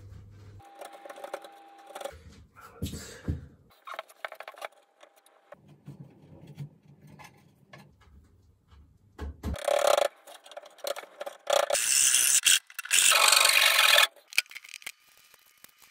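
Hand tools working wood: scattered light knocks and scraping, then loud, rough rubbing strokes, like rasping or sanding, from about ten to fourteen seconds in.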